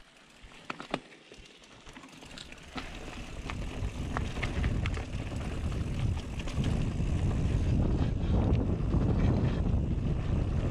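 Wind rushing over an action camera's microphone, mixed with a mountain bike's tyres rolling on a dirt trail. It starts quiet with a few clicks, then over the first few seconds builds into a loud, steady low rush as the bike picks up speed downhill.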